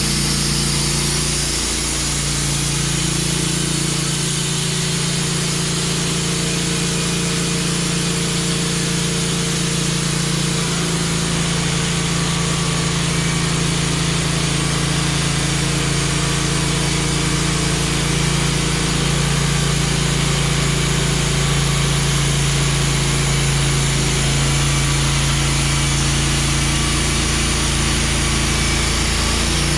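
Wood-Mizer LT15 portable band sawmill running under load, its engine steady with small shifts in pitch as the band blade cuts through a log.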